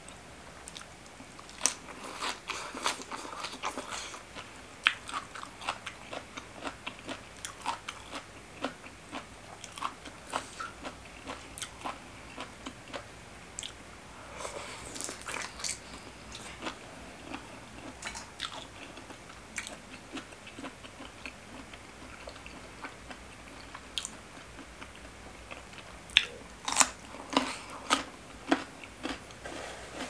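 Close-miked eating of spicy seafood green papaya salad: crisp bites and chewing of shredded green papaya and fresh greens, many sharp crunches in bursts, loudest near the end.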